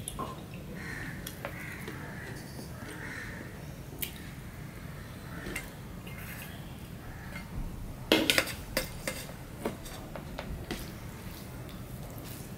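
Stainless steel bowl and plate clinking and scraping as vegetable curry is served out onto rice, with a quick run of sharp clinks about eight seconds in.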